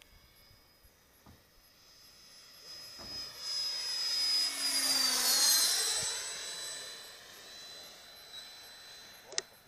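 Radio-controlled EL-39 model jet flying past: its high whine swells, drops in pitch as it passes about five seconds in, then fades away.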